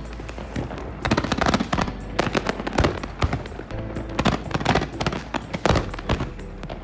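Fireworks going off in rapid, dense bangs and crackles, with music underneath.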